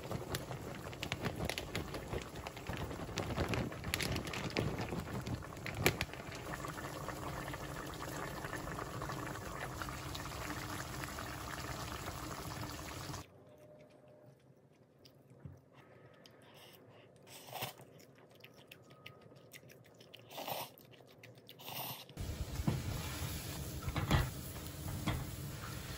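Tomato sauce bubbling and popping in a frying pan for about the first half. Then comes a much quieter stretch with a few scattered clicks. Near the end a pot of water is at a boil, with a few knocks as a block of instant noodles is put in.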